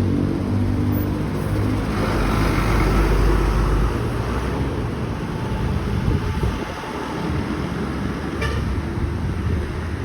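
Large intercity bus engine running with road and traffic noise, a low rumble that swells to its loudest about two to four seconds in as the bus goes by, then settles to a steady road noise.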